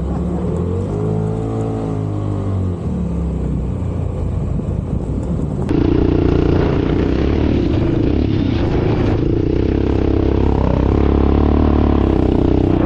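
Off-road vehicle engine running under way on sand, with a pitch that swells and falls about a second in; about six seconds in it gets louder and stays loud as the throttle opens.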